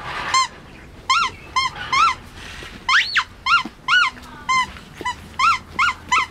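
Puppy yelping and whining in play-fighting with its litter mates: about a dozen short, high-pitched yips in quick succession, each rising and falling in pitch, with one longer, higher swooping cry about halfway through.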